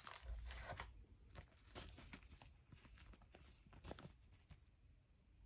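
Faint crinkling of a small clear plastic zip-lock bag being handled, a scatter of light crackles that thins out after about four seconds.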